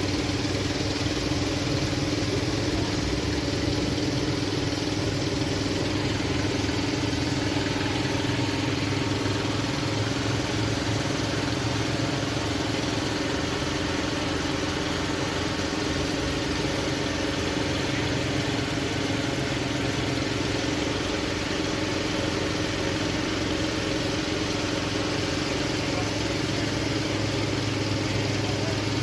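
A vehicle engine idling steadily, holding an even pitch with no revving.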